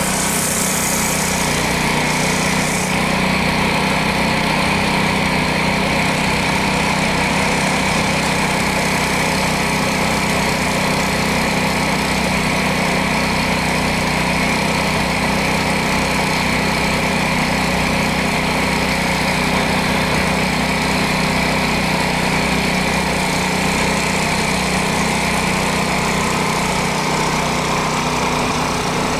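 A train's diesel engine idling, a steady, unchanging drone.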